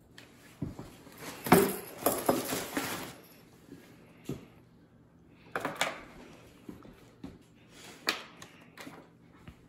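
Cat toys being gathered up and put into a cardboard box: rustling of a fabric play tunnel with light knocks and clatter in irregular bursts, the loudest about a second and a half in.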